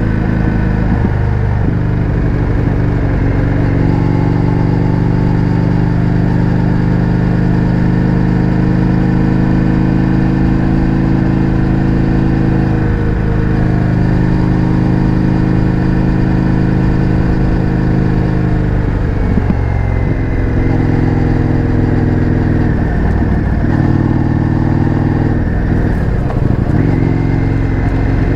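Indian FTR 1200's V-twin engine through an Akrapovič exhaust, running under way at road speed. The note holds steady for long stretches, with a few short breaks where the pitch steps, as on gear changes or throttle lifts.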